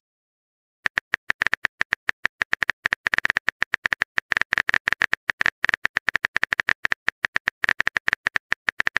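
Rapid, irregular clicks of a phone's on-screen keyboard as a message is typed, several taps a second, starting about a second in.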